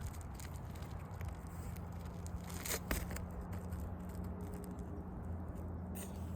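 Scraping and crackling of roof shingles being worked by hand, with scattered small clicks and one sharper knock about three seconds in, over a steady low hum.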